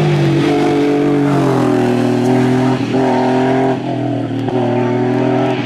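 Porsche 911 flat-six race engine under hard acceleration as the car passes and pulls away uphill. Its note breaks briefly several times as it changes gear.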